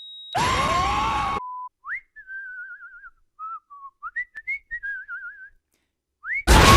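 Whistling: a short tune with a wavering, trilling pitch, following a loud, noisy, one-second burst about half a second in. Loud music cuts in near the end.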